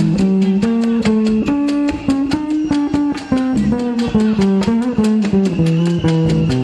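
Salsa band playing live: an electric bass carries a melodic line of held notes over busy, steady percussion.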